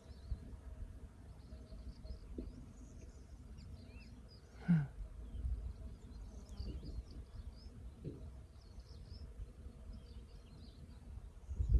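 Quiet countryside ambience: small birds chirping faintly and scattered, over a low rumble and a faint steady hum. One short call falling in pitch comes about halfway through.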